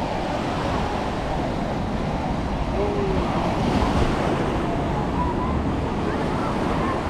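Ocean surf breaking and washing up the sand in a steady rush, with wind on the microphone and faint chatter of a beach crowd.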